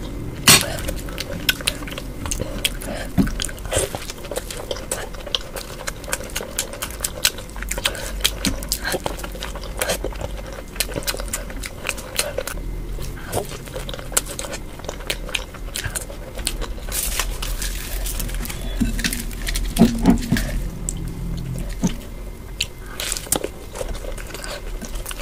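Close-miked eating: a person chewing soft fried kachori soaked in potato curry, with many short wet smacks and mouth clicks. Fingers squish in the curry as pieces are dipped.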